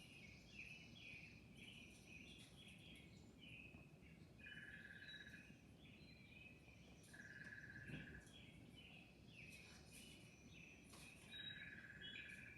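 Faint chorus of small birds chirping and twittering, with an even, buzzy trill about a second long that comes three times.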